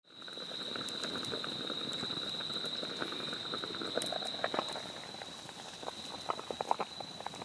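Wood campfire crackling with sharp popping clicks that grow more frequent in the second half, over a steady high-pitched whine.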